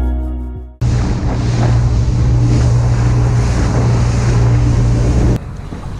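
A motorboat running across open water: a steady low engine hum under rushing water and wind buffeting the microphone, which cuts off suddenly about five seconds in, leaving quieter water and wind. Music fades out in the first second.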